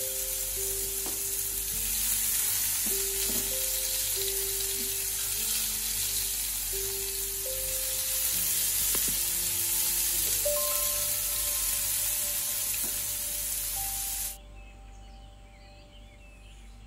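Eggplant cubes sizzling steadily as they fry in oil in a non-stick pan, with a few sharp clicks as the pieces are turned with tongs. The sizzle cuts off suddenly near the end.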